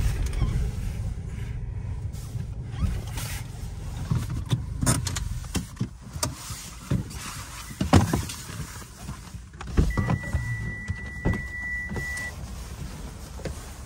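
Handling noises inside a parked car: a low rumble that eases off over the first seconds, with scattered clicks and knocks, the loudest about eight seconds in. About ten seconds in, a single steady high beep lasts about two seconds.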